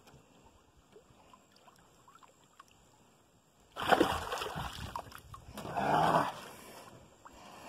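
A pintado (spotted sorubim catfish) thrashing away at the surface as it is released: a sudden loud splash about four seconds in, then a second burst of splashing about two seconds later.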